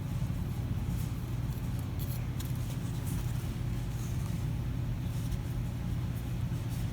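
Soldering gun held on, its transformer giving a steady low electrical hum, with a few faint ticks while solder is fed onto the copper joint.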